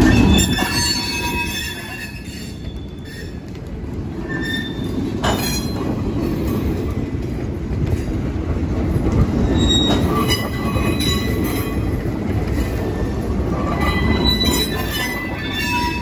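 Freight boxcars rolling slowly past over street track, a steady low rumble with high wheel squeals coming and going. A sharp clank about five seconds in.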